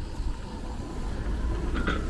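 Low, ragged rumble of wind on the microphone of a moving bicycle, over the steady noise of city traffic.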